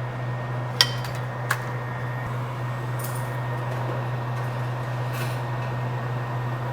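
Steady fan hum and airflow hiss from microsoldering bench equipment, with two light metallic clicks about a second in.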